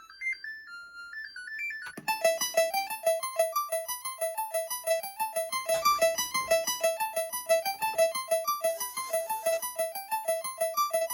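Commodore 64 SID chip playing a chiptune: a soft, thin melody for about two seconds, then louder and busier, a fast even run of short notes with one note repeating under a moving upper line. The owner judges the chip to sound better.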